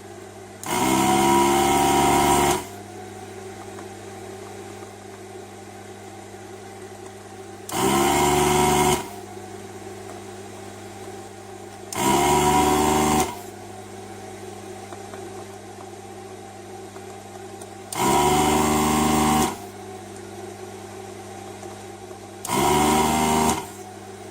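Electric vacuum pump of a desoldering station running in five short bursts of one to two seconds each, spinning up quickly at the start of each, as it sucks molten solder from the filter's pins. A steady low hum continues between the bursts.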